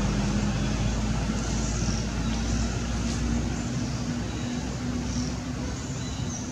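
Steady motor-vehicle noise with an even low hum; the deep rumble under it drops away about halfway through.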